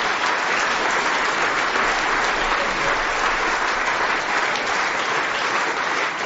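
Live audience applauding: steady, dense clapping that begins to die down at the very end.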